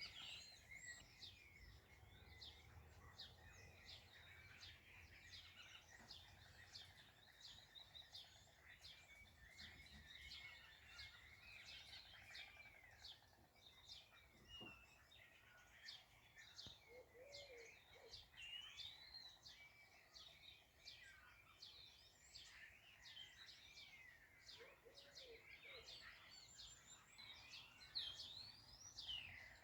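Many small birds chirping and singing at once, faint, with rapid overlapping high chirps and whistled glides, and a few lower calls now and then.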